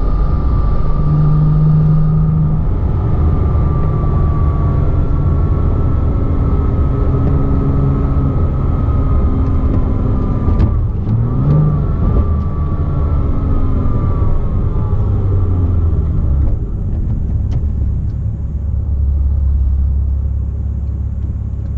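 Porsche Cayman S flat-six engine running on the move, with a thin high-pitched whine over the engine sound that rises and falls with engine speed and fades away about three-quarters through. The whine comes from a worn water pump bearing.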